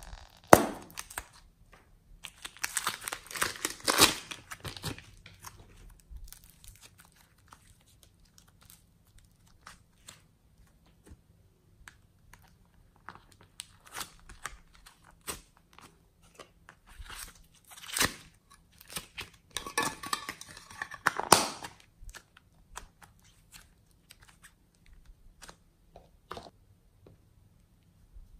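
Plastic piping bag crinkling and crackling as it is squeezed and handled, with soft clay being pulled and torn. The crackles come in dense clusters, first a few seconds in and again about two-thirds through, with scattered single ticks between.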